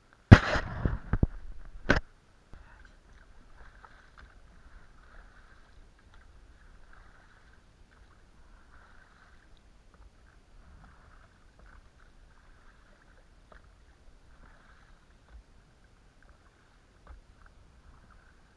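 A loud sudden burst of noise near the start, ending in a sharp knock about two seconds in. Then quiet oar strokes and water splashing as an inflatable boat is rowed.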